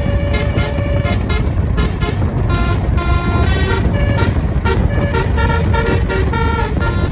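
Basuri telolet horn on a bus playing a fast tune of short tooting notes at changing pitches, over a steady low rumble of engine and road noise.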